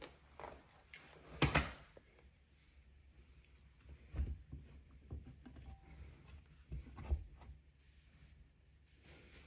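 Handling noise: a few short knocks and thuds, the loudest about a second and a half in, with faint scuffing and rustling in between.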